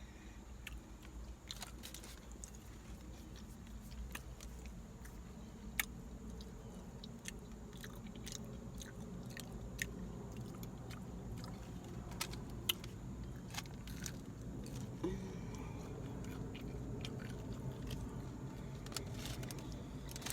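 A person chewing and biting food close to the microphone, with sharp mouth smacks and clicks scattered throughout over a steady low hum.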